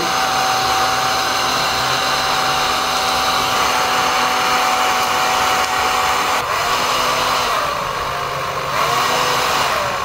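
Handheld hair dryer running steadily on its high setting, used as a makeshift vacuum that draws paper scraps into a cut plastic bottle fitted over it.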